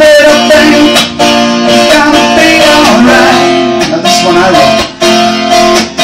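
Acoustic guitar strumming chords in a steady rhythm, with a man's voice singing along in the middle.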